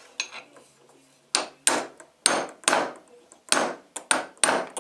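A light hammer tapping a bent stepper-motor shaft laid on a club hammer used as an anvil: about nine sharp metal-on-metal strikes, roughly two a second, starting about a second in, each with a brief ring. The shaft is being straightened with light taps.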